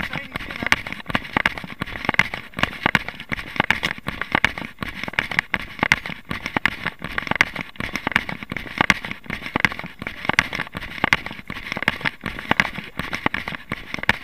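Running footsteps on a dirt track, a steady rhythm of scuffing footfalls mixed with crackling handling noise from a body-worn camera.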